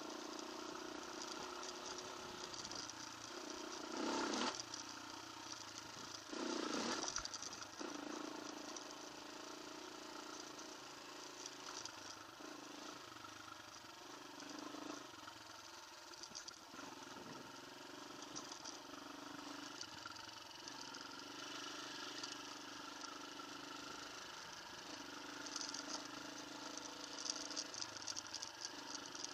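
Off-road motorcycle engine running at low, changing speed, with two short louder surges about four and seven seconds in.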